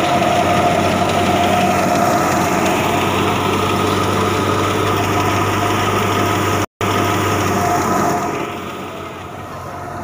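Tractor-driven wheat thresher running at full speed: a steady machine drone with a whine above it. The sound cuts out for an instant about two-thirds of the way through, and it is quieter over the last couple of seconds.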